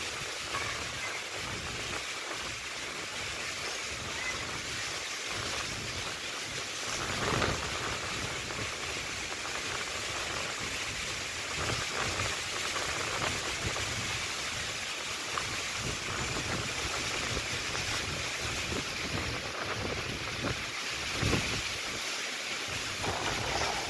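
Steady rushing of wind and rough surf off a choppy sea, with a couple of brief louder gusts.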